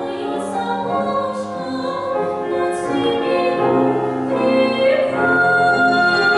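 A woman singing solo with grand piano accompaniment. About five seconds in she settles on a long, steady held note over the piano.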